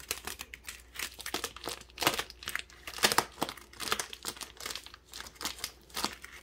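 Plastic wrapping and mesh netting on a frozen turkey crinkling and tearing as it is cut open with scissors and pulled at: a rapid, irregular run of crackles.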